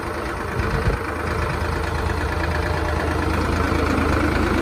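Ford 3600 tractor's three-cylinder diesel engine running steadily while the tractor drives along at cruising speed, heard from the driver's seat.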